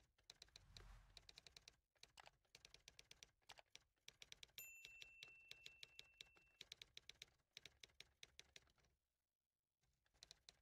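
Faint computer-keyboard typing sound effect: runs of rapid clicks that pause near the end. A brief steady high beep sounds about halfway through.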